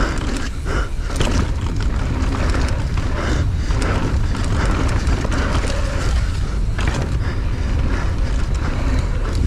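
Enduro motorcycle ridden hard over rough ground, heard through an onboard camera: engine noise under heavy wind buffeting on the microphone, with frequent knocks and rattles from the bumps.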